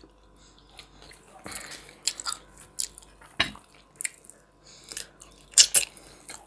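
A person chewing and biting into dry-pan-fried chicken thigh close to the microphone: scattered short wet smacks and clicks, with two sharper ones near the end.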